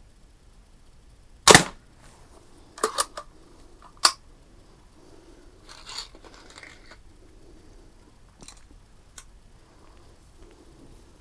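A Daisy 499B spring-piston BB gun fires once, a sharp snap about a second and a half in. Several quicker clicks and some rustling follow, with two faint clicks near the end.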